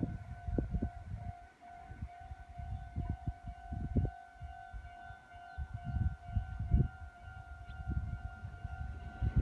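Railway level-crossing warning alarm ringing steadily, a pulsing electronic tone that signals an approaching train, with irregular low rumbles underneath.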